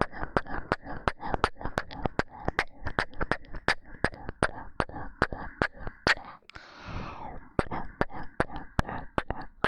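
Rapid close-up kissing sounds picked up by a 3Dio binaural dummy-head microphone: quick wet mouth smacks, about three or four a second, broken about two-thirds through by a breathy pause before they start again.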